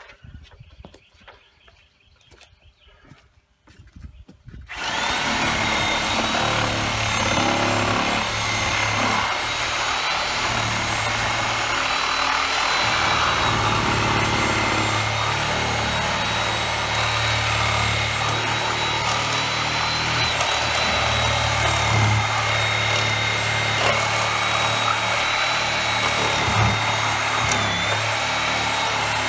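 Reciprocating saw starting about five seconds in and running steadily with a high motor whine, cutting through wood and nails, after a few faint knocks.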